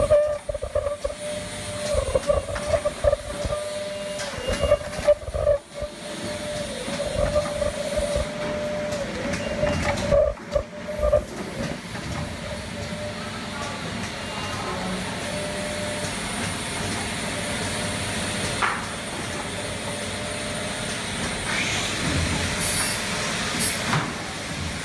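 Triangle nylon tea bag packing machine running, a steady mechanical tone cycling on and off about once a second for the first ten seconds or so, with knocks as it works, then a steadier machine noise.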